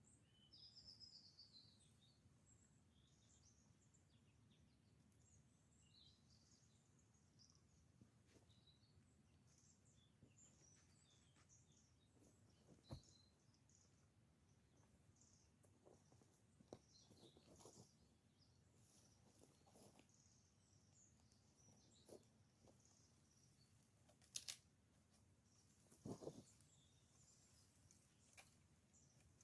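Faint forest birds chirping and calling in short, scattered notes over a low background hush, with a few sharp clicks or knocks, the loudest near the end.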